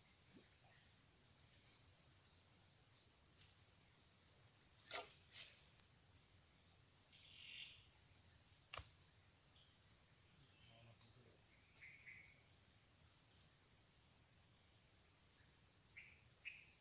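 Steady high-pitched chorus of rainforest insects, two shrill bands of droning, with a brief chirp about two seconds in and a few faint clicks.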